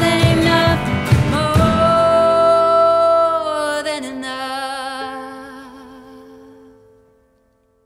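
The end of an acoustic song: women singing over guitar and cajon, then a long sung note with vibrato. The last guitar chord rings out and fades to silence about seven seconds in.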